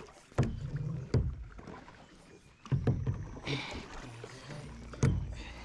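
Paddling a plastic sit-on-top kayak: four dull knocks a second or two apart, with paddle strokes in the water and a short splash a little past halfway.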